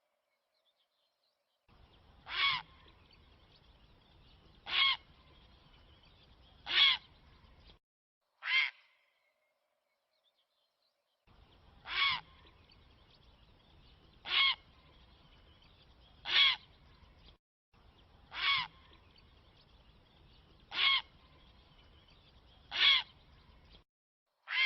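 A bird's short, harsh single call repeated about every two seconds, about eleven times, from a looped bird-call recording of the kind played to draw in birds for hunting; the stretches of recording are spliced with dead-silent gaps between them.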